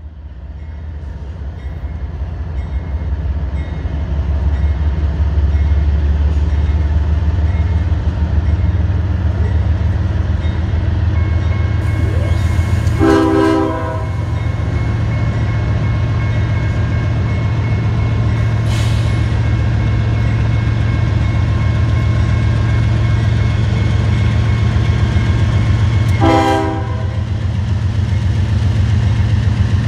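Diesel locomotive running under power with a heavy low rumble that grows louder over the first few seconds. It sounds two short horn blasts, one near the middle and another about thirteen seconds later.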